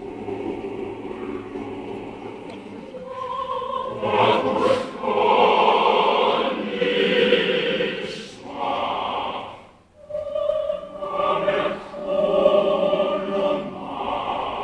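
Large mixed choir of women's and men's voices singing sustained harmonies, swelling loud, breaking off briefly a little past the middle and then coming back in.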